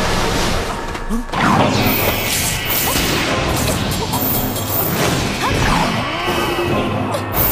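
Wuxia fight sound effects: swishing whooshes of robes and swung blows, and crashing hits, over dramatic background music.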